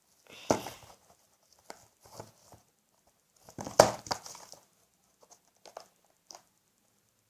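Clear butterfly-shaped plastic case being handled, its snap clasps worked: a few scattered hard plastic clicks and knocks with rustling between, the loudest about four seconds in.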